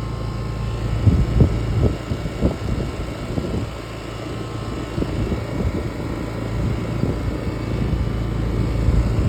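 Outdoor air-conditioner condenser unit running: a steady low hum from the compressor and the spinning fan, with uneven low rumbling surges over it.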